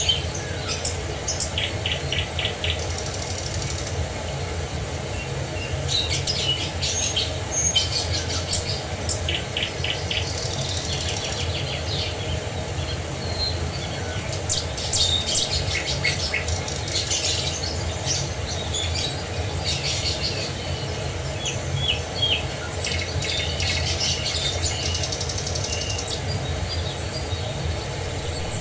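Songbirds chirping and trilling, many short calls and rapid trills overlapping, over a steady rush of flowing water.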